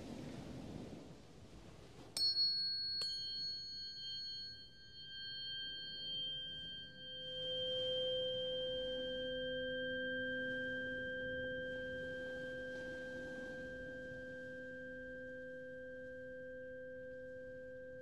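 Tuning forks struck twice, about two seconds in and again a second later, each strike with a brief bright clang that settles into long, steady pure tones. A lower tone swells in a few seconds later, then rings on and slowly fades. A rush of wind noise before the strikes.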